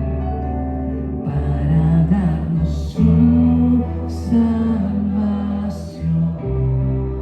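Live worship band playing a slow song: sustained bass and keyboard chords under a moving melody line, with three cymbal hits about a second and a half apart midway through.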